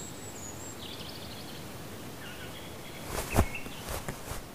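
Faint, short, high bird chirps over a steady outdoor hiss. About three seconds in come a few sharp flaps of a European roller's wings as it lands on a branch, the loudest sound here.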